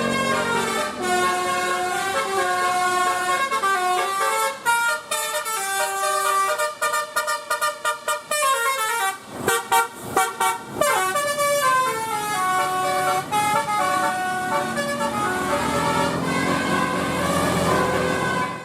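Bus 'telolet' horn, a multi-tone musical air horn, playing melodic phrases of stepped notes, with a few gliding notes and short breaks near the middle.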